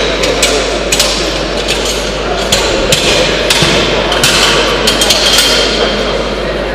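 Iron weight plates clanking against a steel barbell sleeve as loaders change the weight on a bench press bar: a string of sharp metallic knocks, several of them ringing briefly.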